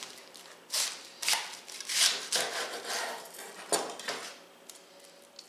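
Serrated knife sawing through a thick slice of raw cabbage on a wooden cutting board: a handful of rasping strokes about half a second apart, then a sharp knock as the blade comes through, before the sound dies away.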